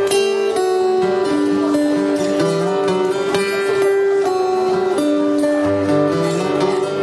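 Live band playing an instrumental intro on electric and acoustic guitars: a melody of held notes, each lasting about a second, over strummed chords, at a steady level.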